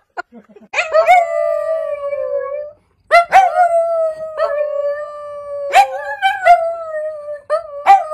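Dachshunds howling: about four long howls in a row, each with a sharp start and then a steady held note lasting a second or two, with short breaks between.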